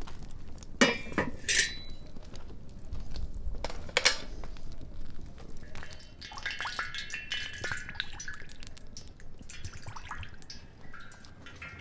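A metal frying pan clanks a few times as it is set on its iron stand over a wood fire, then cooking oil is poured into the pan in a steady splashing stream for several seconds.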